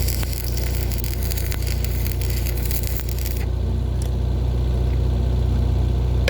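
Electric arc welding crackling and sputtering, stopping abruptly about three and a half seconds in, over a steady low machine hum.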